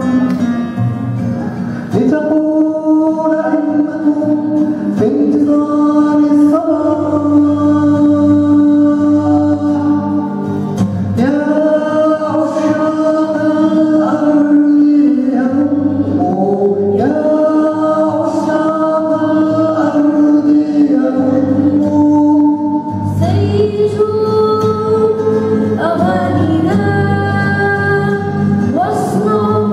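A young girl singing a slow melody with long held notes, accompanied by a strummed acoustic guitar.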